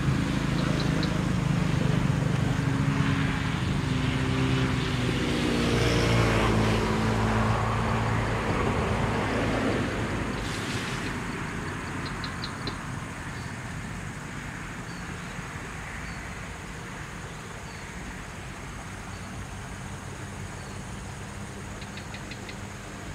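A motor vehicle passing on the nearby road: a loud engine hum whose pitch drops as it goes by, fading away after about ten seconds into a quieter steady traffic background.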